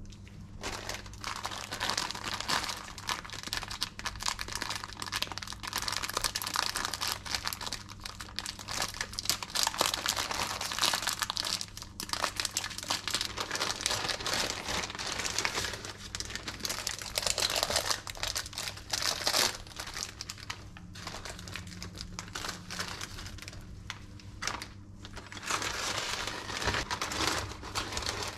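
Thin plastic wrapping and a zip-lock bag crinkling as a packet of biscuits is unwrapped and the biscuits are handled into the bag. It comes in uneven bursts of crackling, with a few short lulls.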